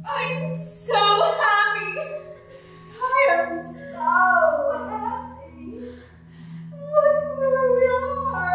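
A woman singing a solo line in long, held notes that slide up and down in pitch, in phrases with short breaths between them.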